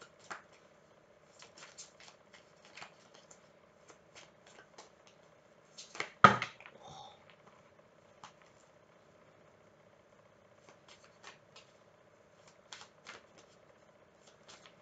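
Tarot cards shuffled by hand: soft, irregular card clicks, with a louder clatter about six seconds in, over a faint steady hum.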